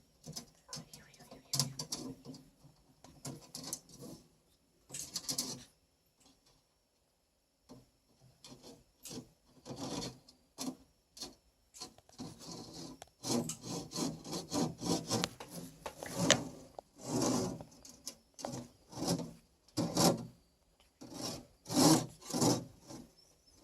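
Cockatoo scraping her beak back and forth on a grate in repeated rasping, saw-like strokes, which the owner takes for beak sharpening. The strokes stop for about two seconds a quarter of the way in, then come back more densely and louder in the second half.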